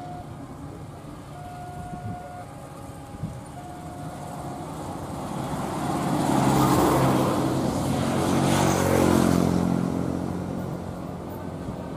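Engine noise of an approaching diesel locomotive and traffic on the road beside the track, swelling to a peak about seven to nine seconds in and easing off. A steady alternating two-note electronic tone sounds during the first few seconds.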